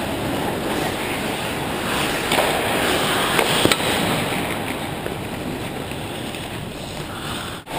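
Ice hockey play heard close to the net: a steady scraping hiss of skate blades on the ice, with a few sharp clacks in the middle. The sound cuts out briefly near the end.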